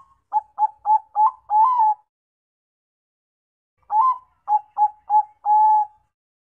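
Bangkok-strain zebra dove (perkutut) singing its cooing song: two phrases, each a quick run of short coos ending in a longer held note, the second phrase starting about four seconds in.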